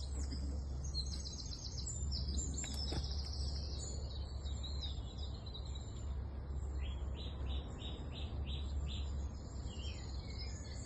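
Wild birds singing and chirping over a steady low rumble. A quick trill comes about a second in, and a run of about seven evenly repeated notes comes near the end.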